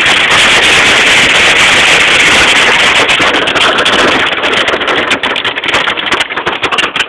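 Hail falling hard, a dense rattle of countless stones striking a hard surface; about four seconds in it thins into separate clicks and knocks.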